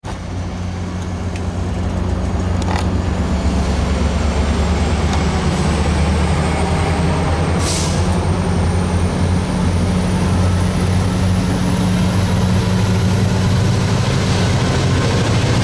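VRE MP36PH-3C diesel locomotive's EMD 645 engine running under power as it pushes a push-pull commuter train of bilevel gallery cars away from the platform, a steady low engine drone over rail noise that grows slightly louder as the locomotive draws near. A brief hiss of air about eight seconds in.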